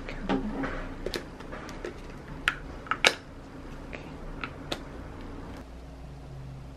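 Sharp plastic clicks and taps as a clear phone case with a grip tok stuck to it is handled, about eight in all, the loudest about three seconds in. After about five and a half seconds only a steady low hum remains.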